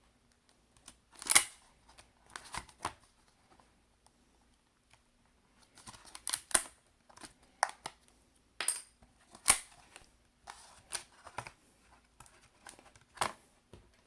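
Irregular small scrapes, clicks and crackles of a pry tool working under an iPad Air 2 battery to lift it out of the case, the two sharpest about a second in and past the middle.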